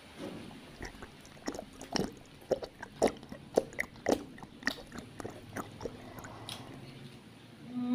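Open-mouthed chewing of roast chicken, with a rapid string of wet lip smacks and clicks that is busiest in the middle and thins out towards the end.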